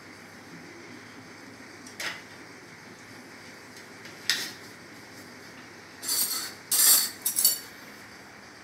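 Stainless-steel spoons and plates clinking on a kitchen counter: a single clink about 2 seconds in, another just after 4 seconds, then a quick run of louder clinks near the end as the spoons are set onto a steel plate.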